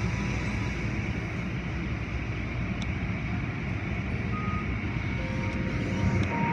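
Automatic car wash running: a steady heavy rumble of water spray and spinning cloth brushes and wash strips working over the car. A few short electronic beeps sound in the second half.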